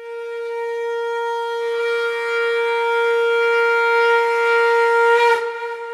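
A conch shell (shankh) blown in one long, steady note. It swells louder and brighter, then breaks off about five seconds in.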